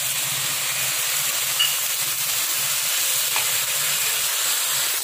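Mutton pieces in masala sizzling in a pan on a gas stove with a little water added: a steady frying hiss, with a couple of faint clicks.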